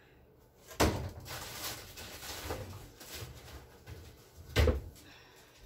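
Two sharp knocks, one about a second in and a louder one near the end, with quieter clatter and shuffling between: objects being handled and set down while someone rummages.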